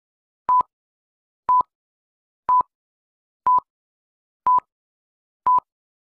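Film-leader countdown beeps: six short, identical electronic beeps at the same pitch, one a second, each starting and stopping with a slight click.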